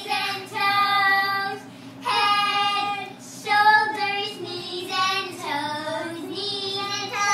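A child singing a run of long, drawn-out notes, each held about a second with short breaks between, some sliding in pitch.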